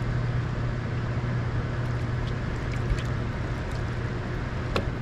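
A steady low hum over a constant wash of rushing-water noise on the water below a hydroelectric dam, with a faint click just before the end.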